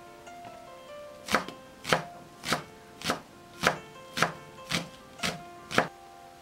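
Knife chopping thin green onions on a wooden cutting board: nine even chops, about two a second, starting about a second in, over soft background music.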